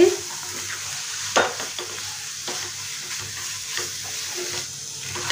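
Wooden spatula stirring and scraping crumbled paneer bhurji around a nonstick pan, over a steady light sizzle of frying, with a few brief sharp scrapes of the spatula against the pan.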